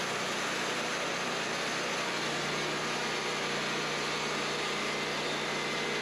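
Wood-Mizer LT40 portable bandsaw mill running steadily, its engine driving the band blade through a small Douglas fir cant to saw off a 2x board. A low steady hum joins in about two seconds in.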